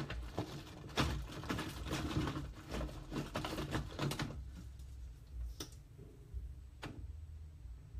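A quick run of close rustles and clicks from objects being handled, for about four seconds, then two single clicks near the end.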